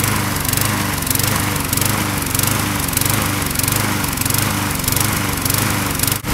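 Walk-behind lawn mower's small engine running fast, its pitch rising and falling about twice a second in a steady surge. The engine is running on octane booster in both its fuel and its crankcase oil.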